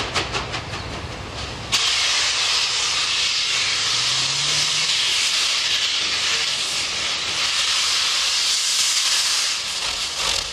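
NSW 59 class steam locomotive 5910 working a train, its exhaust chuffing at about five beats a second. About two seconds in, a loud, steady hiss of escaping steam cuts in suddenly and drowns out the beats.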